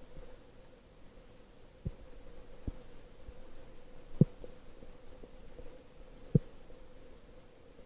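Muffled underwater ambience picked up by a camera in its housing: a steady faint hum with a few dull knocks, two of them louder, about four and six seconds in.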